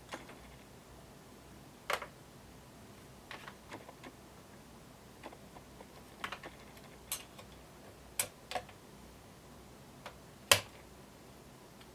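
Irregular clicks and light snaps of Hi-Tek 725 keyboard switch parts (keycaps and sliders) being handled and worked loose, about a dozen in all, with the loudest near the end.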